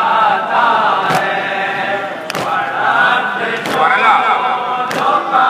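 Male voices chanting a noha, a Shia mourning lament, in a slow unison chant. Sharp strikes of matam, hands beating on chests, keep time about every 1.3 seconds, four times.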